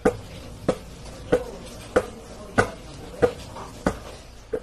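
Basketball being dribbled on the floor: eight bounces at an even pace, about one and a half a second, each a sharp slap with a short ring.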